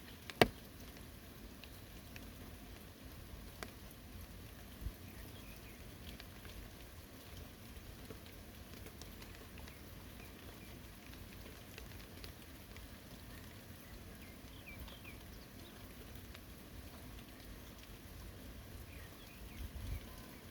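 Steady rain falling on a forest, with scattered individual drops; a single sharp click about half a second in stands out above the rest.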